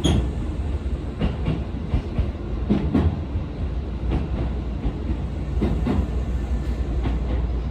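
Keisei Main Line electric train running at speed: a steady rumble of wheels on rail, with several irregular clacks as the wheels pass over rail joints.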